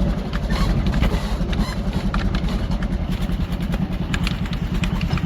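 Vehicle engine running steadily with a low pulsing rumble, heard from on board a bumpy ride, with light rattles and clicks over it.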